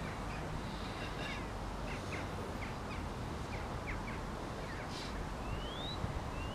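Small birds chirping in short repeated calls, with two rising whistles near the end, over a steady rumble of wind on the microphone.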